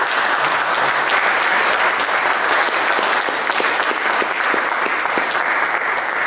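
Audience applause: many people clapping steadily, a dense crackle of hand claps that holds at an even level throughout.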